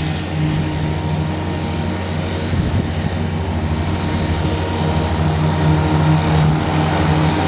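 Toro Groundsmaster 4500D mower's Kubota four-cylinder turbo diesel engine running steadily, with an even low hum.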